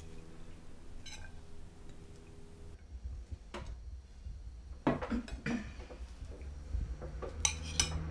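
Cutlery clinking and scraping against china plates and a serving bowl as food is served and eaten: a few scattered clinks, then clusters about five seconds in and near the end. A low steady hum runs underneath.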